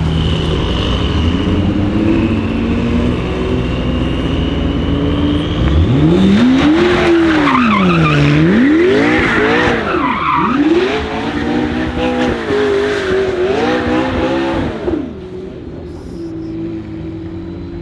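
Supercar engines idling, then from about six seconds in a McLaren P1 spinning donuts. Its twin-turbo V8 is revved hard up and down over and over, with tyres squealing, until it drops back to a quieter hum near the end.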